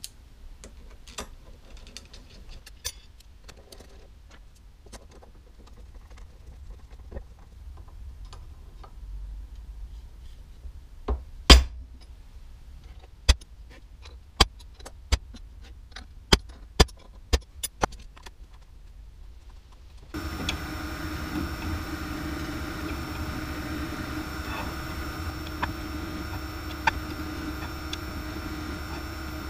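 Light metal clicks of screws and a screwdriver, then about nine sharp hammer taps on a punch set against the side of a steel linear rail to seat it. About twenty seconds in the sound switches abruptly to a drill press running steadily with an end mill cutting an aluminium bar.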